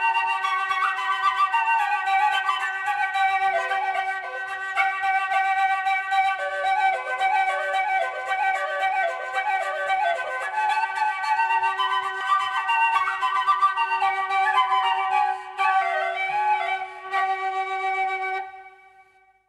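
Flute music, a wandering melody over a steady held drone, fading out to silence near the end.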